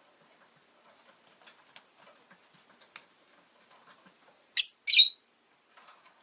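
Rosy-faced lovebird giving two loud, short, high chirps about half a second apart, a little past halfway through, amid faint soft clicks and taps.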